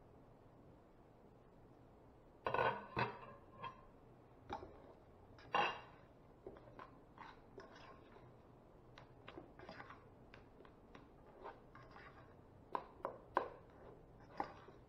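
A serving spoon knocking, tapping and scraping against a pot of cooked white rice as the rice is fluffed and scooped. There are a few louder knocks about two and a half and five and a half seconds in, then many quick light taps.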